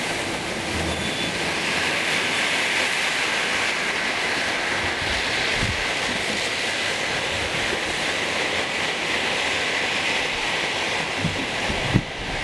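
Steady rushing road noise of a vehicle driving on a wet highway, tyres hissing on the wet surface, with a couple of low thumps near the end.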